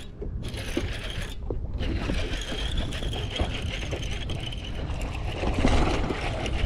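Fishing reel cranked steadily on a retrieve, its gears whirring with a high steady whine, over wind rumbling on the microphone.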